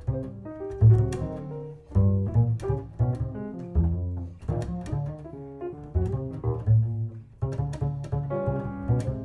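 Upright double bass played pizzicato: a run of finger-plucked notes moving up and down in pitch in a jazz line, each note starting with a sharp pluck of the string.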